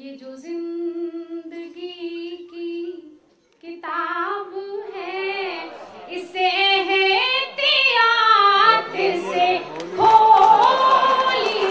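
A woman singing a verse of an Urdu ghazal in tarannum style, unaccompanied, holding long notes and bending the melody. She grows louder from about 4 s. About 10 s in, noise from the audience rises under her voice.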